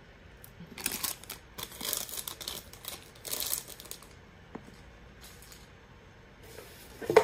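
Plastic blind-bag wrappers rustling and crinkling in several short bursts as the next bag is taken from the pile, then a quieter stretch of handling, and a single sharp knock near the end.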